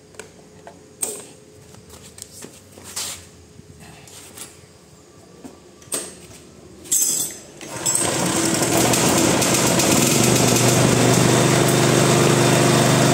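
Gasoline generator being started: a few clicks and knocks as it is readied, then the engine catches about eight seconds in and runs steadily.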